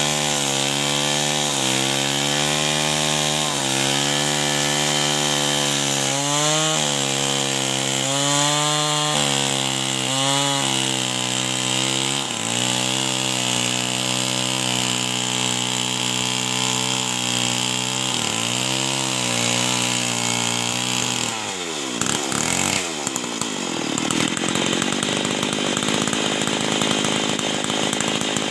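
Two-stroke chainsaw cutting wood under load, its engine speed repeatedly dipping and recovering. About 21 seconds in, the engine speed sweeps up sharply and stays high to the end.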